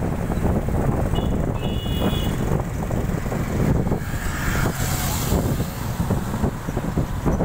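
Steady rumble of road and wind noise from a vehicle moving along a paved road, with passing traffic. A few short high beeps sound about one to two seconds in.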